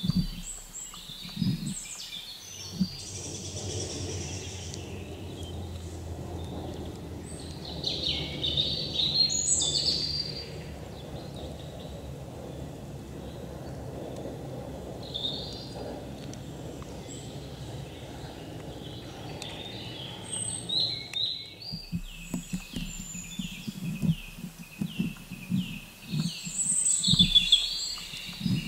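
Forest birds chirping, in quick runs of short, high notes that come and go. Under them a steady low rumble runs through the middle, and soft low thumps come near the start and the end.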